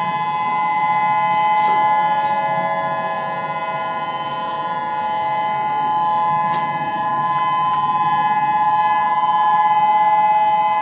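Hawaii tsunami warning sirens sounding a steady chord of several held tones at one pitch, the loudness slowly swelling and easing. This is the outdoor warning signal for a tsunami alert.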